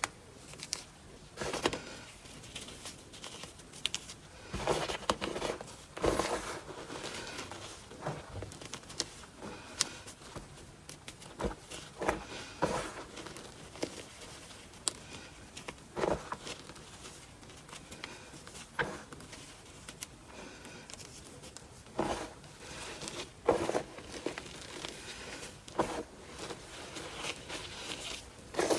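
Hands squeezing, crumbling and rubbing through dry, crumbly dyed powder in a plastic basin: irregular soft crunches and crackles, one every second or two, with a light sifting patter as the crumbs fall.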